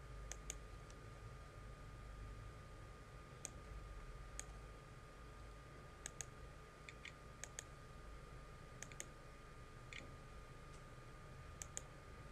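Faint computer mouse button clicks, some single and some in quick pairs, coming every second or two, over a faint steady whine.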